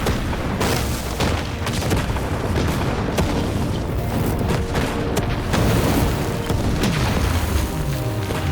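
Battle sound effects: repeated booms and crashes over a dramatic film score.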